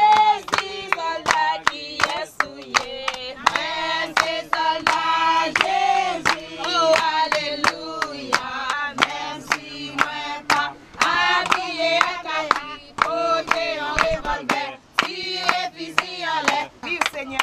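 A group of women and children singing together, with hand clapping keeping a steady beat of a few claps a second.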